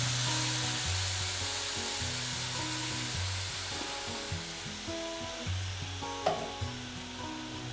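Wet ground tomato paste sizzling as it is poured into hot ghee tempering in a pan; the sizzle is loudest at the start and slowly dies down. Soft background music underneath.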